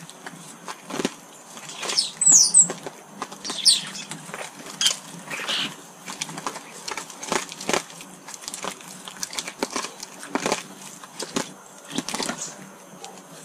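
Garden birds at a feeder: wings flapping and many sharp taps, with a few short high calls that fall in pitch, the loudest about two seconds in.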